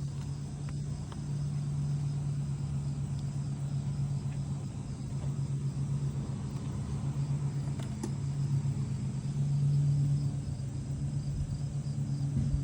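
A cat purring steadily close by, a low pulsing hum that swells and eases, with crickets chirping faintly.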